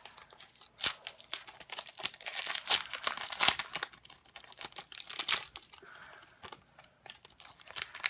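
Foil wrapper of a Pokémon card booster pack being torn open and crinkled by hand: a dense run of irregular sharp crackles that eases off a little before the end.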